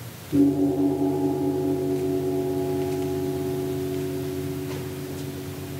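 A gong struck once, a moment after the start, then ringing on with a pulsing, wavering tone that slowly fades.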